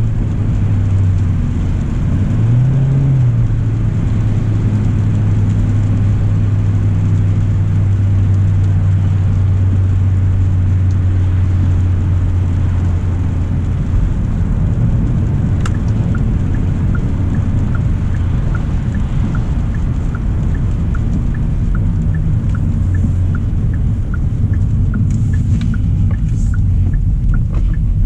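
Steady low hum and road noise inside the cabin of a 2025 Hyundai Elantra driving on wet roads in the rain. About halfway through, the turn signal starts ticking evenly, a little under two clicks a second.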